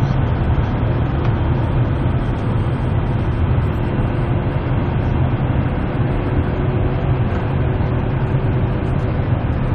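Jet airliner cabin noise on the descent to landing: the steady roar of the engines and airflow, heard from inside the cabin, dominated by a heavy low rumble with a faint steady hum above it.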